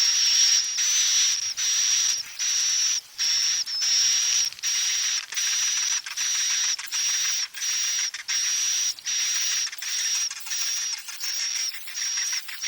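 Recorded swiftlet lure call: a dense, buzzy, hissing chatter with a thin high whistle on top, broken by short gaps more than once a second. It is the roosting-call type played to draw swiftlets into a nesting house.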